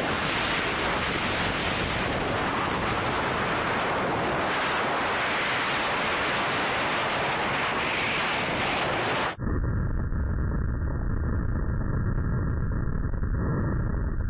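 Wind rushing steadily over an action camera's microphone in skydiving freefall. About two-thirds of the way through it cuts abruptly to a duller, deeper wind rumble.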